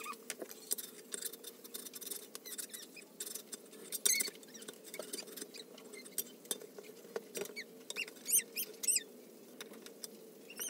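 Small clicks and crackles from a black strip being handled and worked, with a few short squeaks about eight to nine seconds in as a soldering iron is drawn along it, over a faint steady hum.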